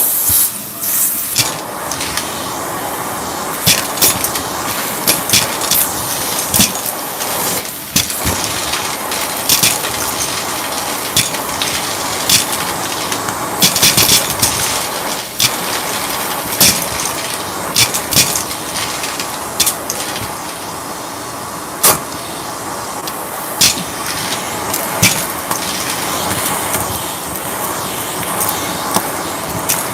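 Shark vacuum cleaner running steadily, with irregular sharp clicks and rattles throughout.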